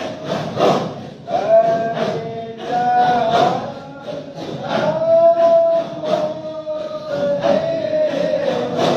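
A group of voices chanting together in long, held, slowly sliding notes, with regular strikes of hand percussion beating along, in the manner of devotional dhikr chanting.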